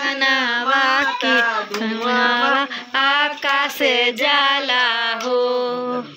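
A woman singing a Hindu devotional song in long, held notes, stopping just before the end.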